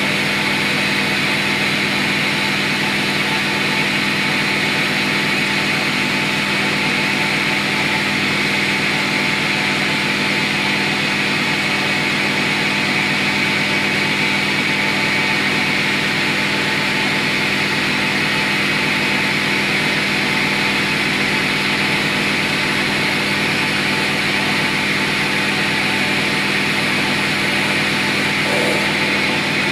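Metal lathe running steadily while a taper is turned, the compound slide fed by hand; a steady hum with a higher whine over it.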